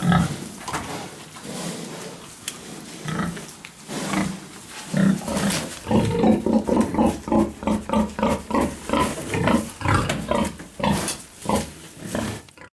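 Pigs grunting in a pig shed: scattered grunts, then from about six seconds in a rapid run of short grunts, two or three a second, which cuts off suddenly near the end.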